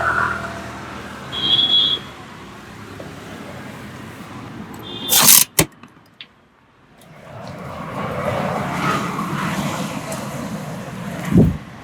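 Roadside traffic noise, with a short high beep about one and a half seconds in and a loud sharp noise about five seconds in. The traffic noise drops away briefly, then swells again as vehicles pass.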